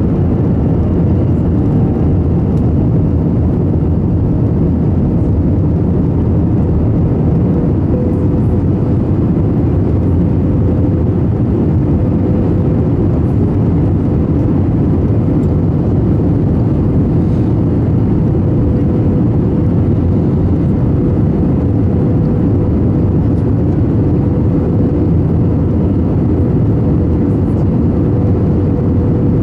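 Steady cabin noise inside an Airbus A321 airliner on approach: a constant rumble of engines and airflow, with a steady humming note that grows stronger about eight seconds in.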